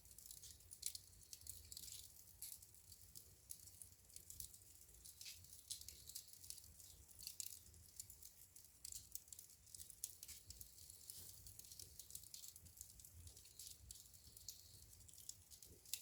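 Burning wood in a fireplace crackling faintly, with frequent small, irregular pops and snaps over a soft low rumble.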